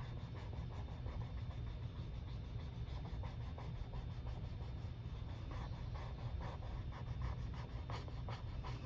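Faint handling sounds of paper pieces being pressed and rubbed down by hand: small scattered ticks and scrapes over a steady low hum.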